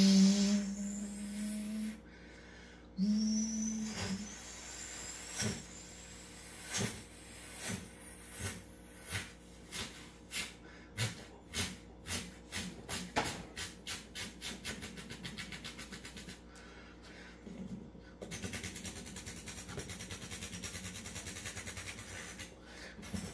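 A man imitating a helicopter starting up with his mouth: a rising high whine, then rotor chops that start slow and speed up until they run together into a fast, steady chop near the end.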